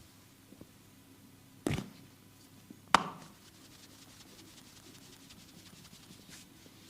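Hands working on bare skin during a massage: a sharp slap about one and a half seconds in and a louder, sharper crack about a second later, then faint rubbing and crackle on the skin.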